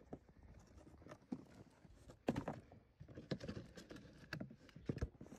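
Footsteps walking through snow: uneven steps with a louder knock about two seconds in.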